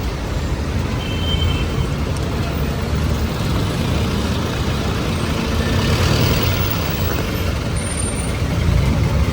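City street traffic in heavy rain: engines of trucks, buses and cars running and passing over a steady rushing hiss. It swells a little midway and again near the end.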